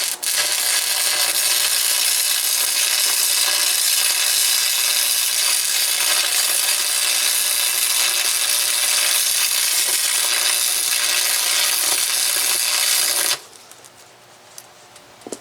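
Stick arc welding on the steel cutting edge of a skid-steer bucket: a loud, steady crackling hiss of the arc that runs for about thirteen seconds and stops abruptly near the end, when the arc is broken, followed by a few faint clicks.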